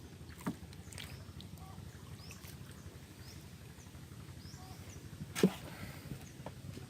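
Knocks and bumps from a collapsible fish trap being handled and set in floodwater, with one loud thump about five and a half seconds in.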